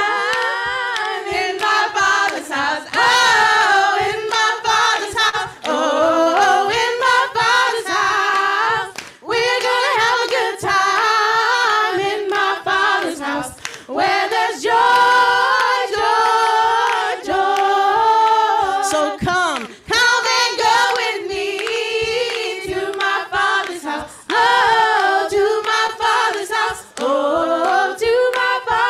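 Several women's voices singing a worship song together in harmony, unaccompanied, with hand claps keeping the beat.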